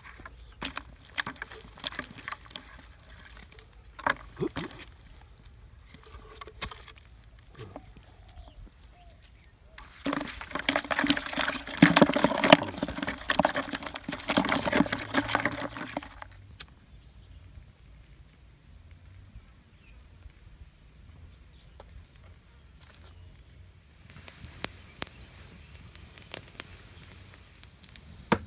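Scattered knocks and clicks of fish being handled, then about six seconds of dense wet rattling and splashing from live fish thrashing in a plastic bucket.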